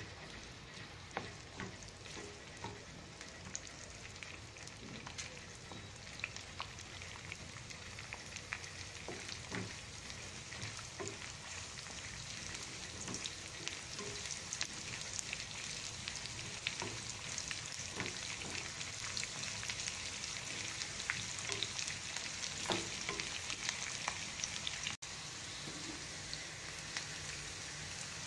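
Chopped onions, dried red chillies, green chillies and tempering seeds sizzling in hot oil in a frying pan, the sizzle growing louder as it goes. A wooden spatula clicks and knocks against the pan as it stirs, and the sound drops out for an instant near the end.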